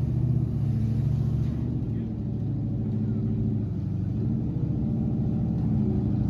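NASCAR stock car V8 engine running at low revs, a steady, rapidly pulsing low rumble.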